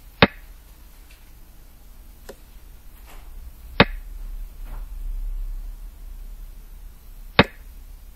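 Three sharp clicks about three and a half seconds apart: the move sound of a xiangqi replay board, one click as each piece lands on its new point. A few much fainter ticks fall between them over a low hum.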